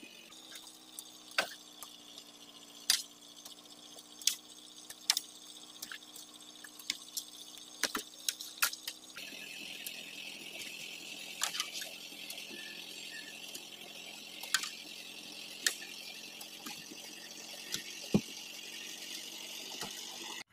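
Oil palm fruit bunches being thrown up onto a lorry bed: a string of irregular sharp knocks and thuds, over a steady low hum in the first half and a steady high hiss after an abrupt change about nine seconds in.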